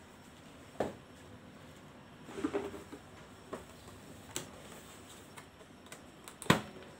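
Cardboard boxes being handled and set down on a table: a handful of separate knocks and scuffs, with a small cluster in the middle and the loudest knock near the end.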